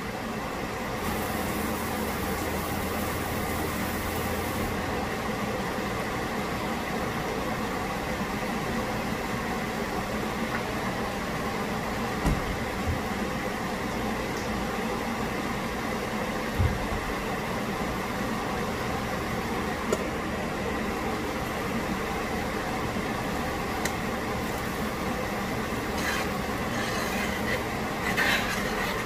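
Steady mechanical hum, with a few sharp knocks about twelve, sixteen and twenty seconds in.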